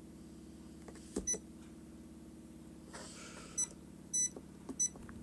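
Orisec alarm keypad giving short key-press beeps as codes are entered: a handful of brief high blips, spaced irregularly, with a slightly longer beep about four seconds in, over a faint steady hum.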